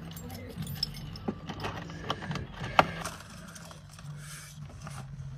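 Small objects clicking, knocking and rattling as belongings are grabbed out of a car door pocket, with one sharp knock about three seconds in.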